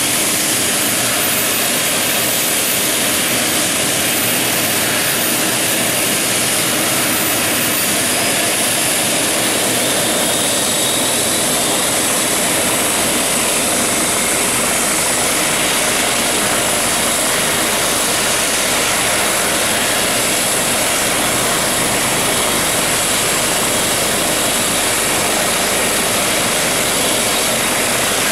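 Eurocopter EC135 twin-turbine helicopter running steadily, a loud even rush of turbine and rotor noise with a faint high steady whine. The low rumble grows a little about eleven seconds in.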